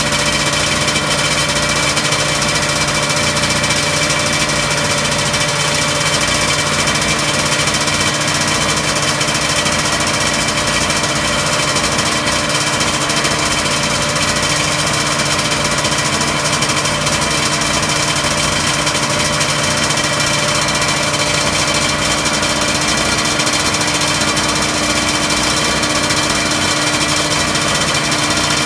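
Honda NSR500's 500 cc two-stroke V4 racing engine idling steadily, its pitch holding level with no revving.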